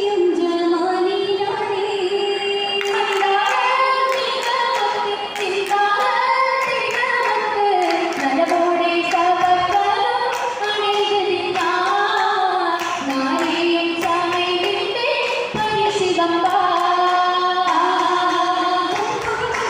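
Female voices singing an Oppana song in chorus, a Mappila song with no instruments, accompanied by the dancers' hand claps that come in steady rhythm from about three seconds in.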